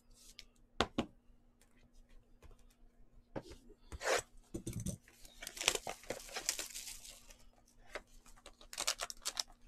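Trading-card box and pack wrapping being torn open by hand, in irregular bursts of tearing and crinkling. Two sharp clicks of hard plastic card holders come about a second in.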